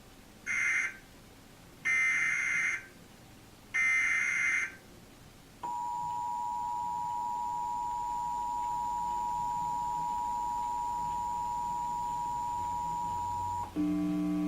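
Emergency Alert System SAME header: three short bursts of warbling digital data tones, each about a second long, followed by the EAS two-tone attention signal (853 and 960 Hz together) held steady for about eight seconds. Just before the end a different steady low tone with overtones starts.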